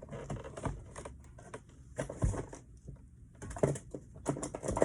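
Irregular clicks and light clatter of slime-making supplies being handled and set down on a table.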